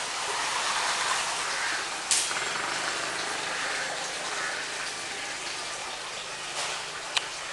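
Steady rushing of wind outdoors, with a sharp click about two seconds in and a light tick near the end.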